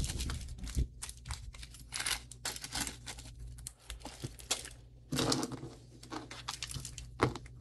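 Jewelry being handled: rapid light clicks and plastic crinkling, with a louder bout of rustling about five seconds in.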